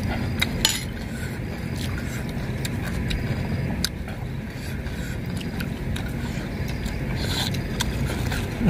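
Metal spoons clinking and scraping in stainless-steel soup bowls, a few short clicks, over a steady low rumble.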